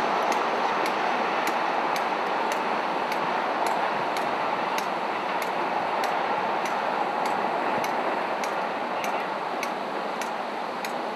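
Stationary diesel passenger trains idling at a crossing loop: a steady mechanical hum that eases slightly, with a light regular ticking about twice a second.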